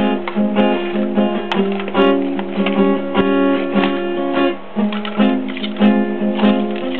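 Acoustic guitar playing strummed chords, with several held notes ringing between the strums.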